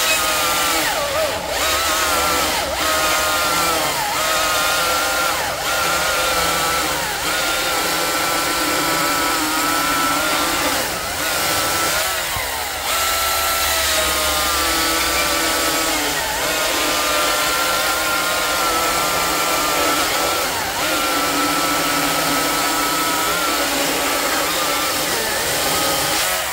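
Ego CSX5000 cordless electric chainsaw, fitted with a .325 7-tooth rim sprocket for lower chain speed and more torque, cutting through a large log under load. The motor's whine dips in pitch and recovers several times as the chain is leaned into the wood.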